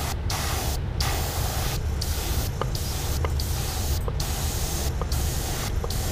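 Airbrush spraying paint onto a crankbait body: a steady hiss of air and paint, broken by short pauses about once a second between passes, over a low steady hum.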